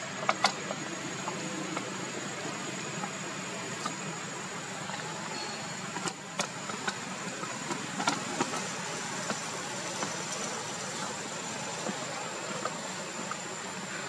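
Steady outdoor background: a low hum with a thin, steady high whine, broken by a few sharp clicks, the loudest two just after the start.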